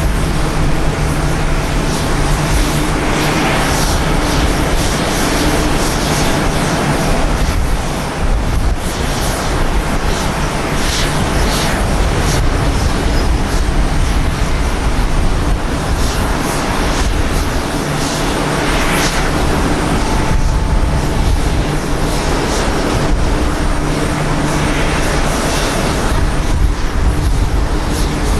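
Boeing 787-9 airliner's turbofan engines running, a loud steady jet rush with a few faint steady hum tones underneath that slowly swells and eases.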